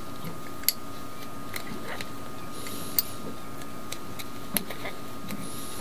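A few sharp little metal clicks and ticks, three of them standing out, as a small threading tool from a tap and die set is worked by hand to repair the thread of the diesel's purge (bleed) screw. A faint steady hum runs underneath.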